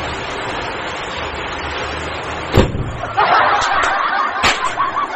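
Matchstick heads flaring in a chain with a steady hiss, broken by one sharp crack about two and a half seconds in; a sharp click follows near the end.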